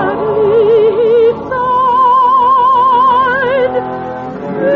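Operetta singing with accompaniment on a 1953 radio broadcast. A voice holds a long note with wide vibrato, then about a second and a half in moves up to a higher held note, also with wide vibrato.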